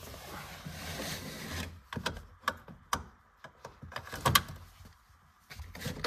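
Rustling as an original car seat belt is drawn out, followed by a series of sharp clicks and knocks from the belt's metal tongue and buckle hardware, the loudest about four seconds in.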